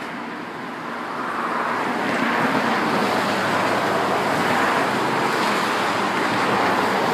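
Heavy earth-moving machinery running and drawing closer, a steady noisy rumble that grows louder over the first two or three seconds and then holds.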